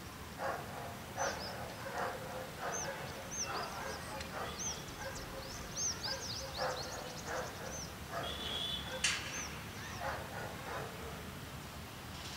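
A dog barking repeatedly, with many high, quick bird chirps over it. A sharp click comes about nine seconds in.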